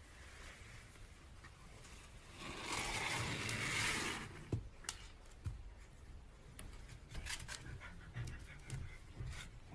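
A dog's breathing: one breathy burst of panting lasting under two seconds, then scattered small clicks and taps.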